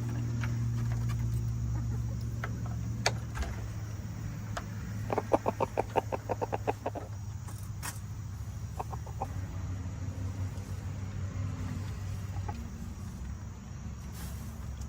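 Backyard chickens clucking, with a fast run of clucks, about ten a second, lasting roughly two seconds about five seconds in, and a shorter run a little later. A steady low hum runs underneath.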